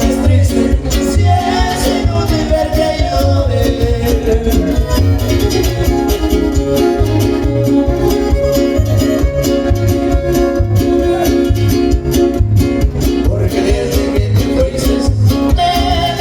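Latin American music with a singing voice over a steady bass beat.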